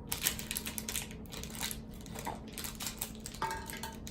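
Toy packaging being opened by hand, the plastic and cardboard crinkling and crackling in quick, irregular clicks.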